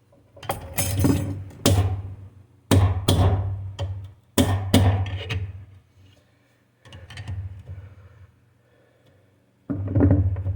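Irregular knocks and clunks of metal transmission parts being handled and worked into place in a 727 automatic transmission: about seven sharp hits in the first five seconds, a softer one about seven seconds in and another near the end, some with a short ring.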